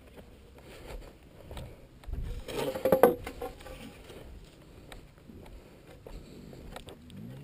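Footsteps through grass with rustling and handling noise on a helmet-mounted camera, and a louder scraping rustle about two and a half to three seconds in.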